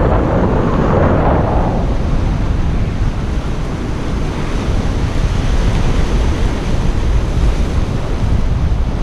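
Surf washing on the shore, with wind buffeting the microphone in a steady low rumble. A wave washes in during the first couple of seconds, and an even hiss of water follows.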